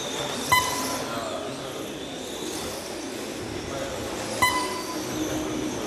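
Electric 1/12-scale RC pan cars with stock 17.5-turn brushless motors whining on the carpet track, the pitch rising and falling with throttle. Two short electronic beeps about four seconds apart, the lap-counting system marking cars crossing the timing line.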